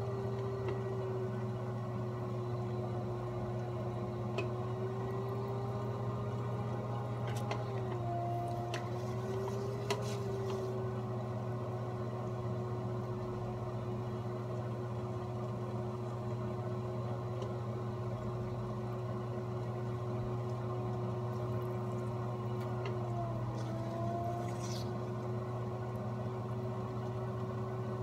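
Electric pottery wheel running with a steady motor hum and whine. Its pitch dips briefly twice, once about a third of the way through and again near the end.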